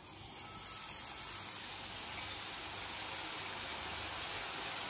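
Gram-flour batter drops falling through a perforated boondi ladle into hot oil and sizzling as they fry. The sizzle builds over the first second and then holds steady.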